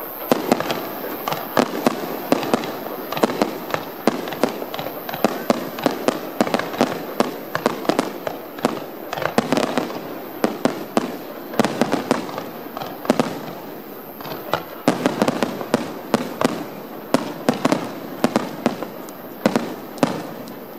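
Aerial fireworks bursting in a rapid barrage: many sharp bangs a second with crackle between them. The bangs stop right at the end.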